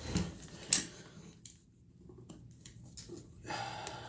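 Handling of an AR-style rifle upper and its parts: one sharp metallic click a little under a second in, then softer small clicks and rustling.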